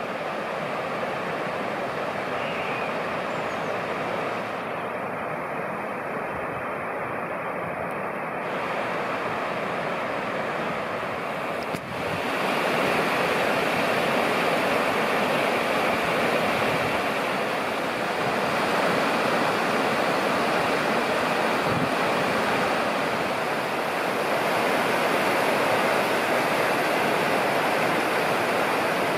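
Steady rushing of running water. About twelve seconds in it cuts abruptly, with a click, to a slightly louder rush of the same kind.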